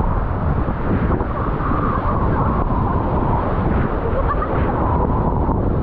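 Steady rushing of river whitewater mixed with wind buffeting the microphone, a continuous loud noise with no breaks.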